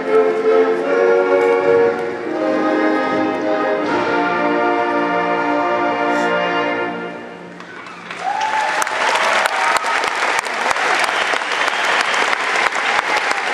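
A live concert band plays sustained closing chords that fade out about seven seconds in. Then a large arena audience breaks into applause.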